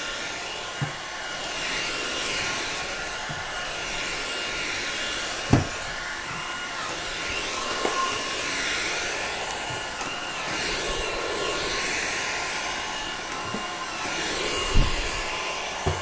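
Dreame V10 cordless stick vacuum running steadily, a high whine over rushing air, as its floor head is pushed across the floor and under furniture. A few short low knocks, the loudest about five and a half seconds in.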